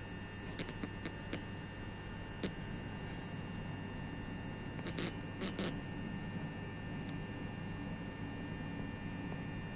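Steady low hum indoors behind a window, with scattered light clicks of the camera being handled, a few in the first seconds and a short cluster about five seconds in.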